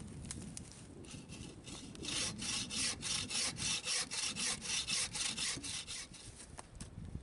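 Hand saw cutting through green red oak with quick, even back-and-forth strokes, about three a second. The strokes grow louder about two seconds in and stop shortly before the end.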